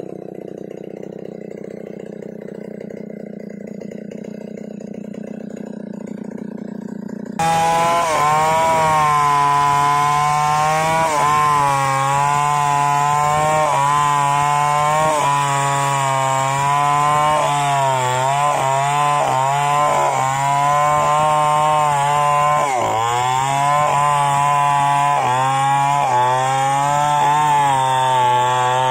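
A Stihl 070-type two-stroke chainsaw at full throttle, ripping lengthwise through a wadang wood plank. It comes in abruptly about seven seconds in, after a quieter low rumble, and its pitch dips briefly several times as the chain bites and the engine loads.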